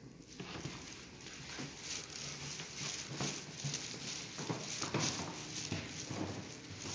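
Footsteps walking across a hard floor, an irregular run of steps.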